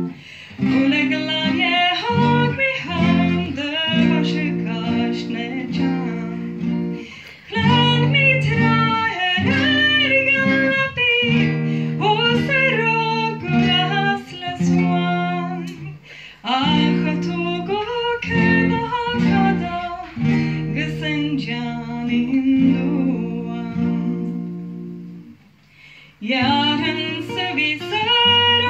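A woman sings a Scottish Gaelic love song to acoustic guitar accompaniment. The music dips almost to silence briefly about 25 seconds in, between phrases, then picks up again.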